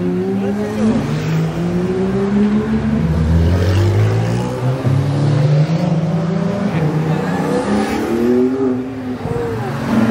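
Car engines running and revving, with the engine note climbing and dropping back several times.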